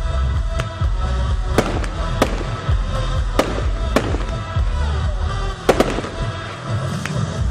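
Aerial firework shells bursting in a string of sharp bangs, about one a second, over loud music with a steady bass.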